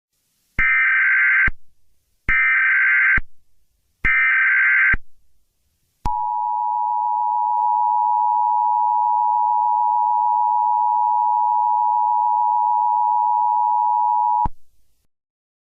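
Emergency Alert System alert opening: three short, identical bursts of screechy SAME header data tones, about a second apart. These are followed by the EAS two-tone attention signal, a steady dual tone held for about eight seconds before it cuts off sharply.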